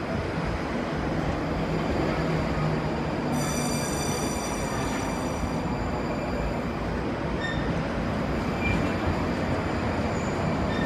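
81-740/741 Rusich articulated metro train running into the platform and slowing, a continuous rumble and hiss of wheels on rail. For about two seconds midway a high whine with many overtones rides over it.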